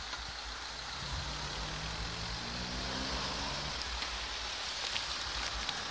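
Road traffic passing close by: a steady hiss of tyres and traffic, with one vehicle's engine hum heard from about a second in until nearly four seconds. A few light clicks near the end.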